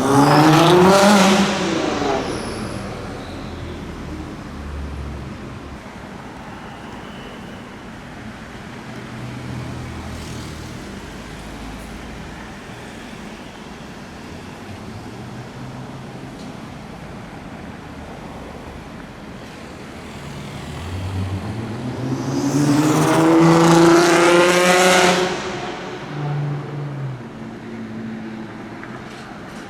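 Sports car engines accelerating hard on a street. A loud exhaust note rises steeply in pitch in the first two seconds, then dies away to traffic noise. A second hard acceleration rises in pitch from about twenty-one seconds, with a short blip of revs just after it.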